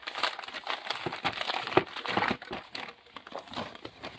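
Newspaper and cardboard packaging crinkling and rustling under hands handling a toner cartridge, in a run of irregular crackles.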